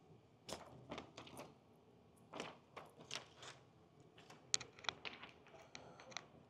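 Faint, irregular crackles and clicks of window tint film against car door glass as it is cut along the edge with a snap-off utility knife and lifted back by hand.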